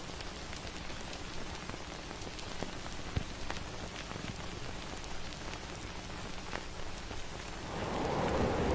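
A steady hiss scattered with many small crackling clicks, with one sharper click about three seconds in. Near the end it swells into a louder rushing sound.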